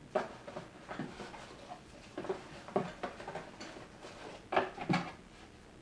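Unboxing handling: camera accessories and their packaging picked up and moved, a scatter of light clicks, taps and rustles, with a couple of firmer knocks near the end.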